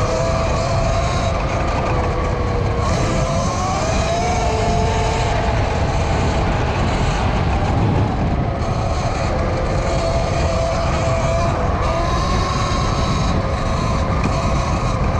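Eride Pro SS electric dirt bike's motor whining, its pitch drifting up and down with speed, over heavy wind rush on the microphone.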